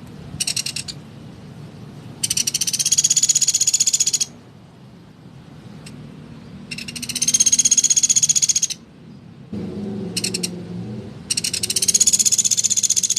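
Woodpecker calling in fast, high rattling trills: three long trills of about two seconds each and two short bursts, with pauses between.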